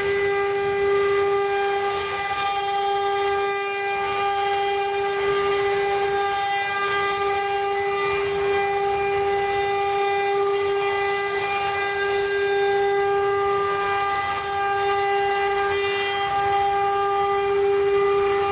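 CNC wood-carving router's spindle running with a steady whine at one unchanging pitch, over a noisy hiss.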